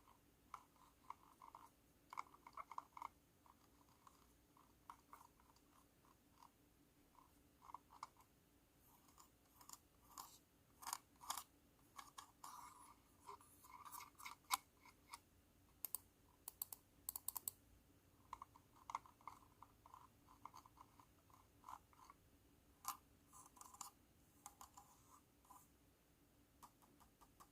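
Typing on a cat-shaped keyboard: irregular runs of thunky keystrokes with short pauses between them.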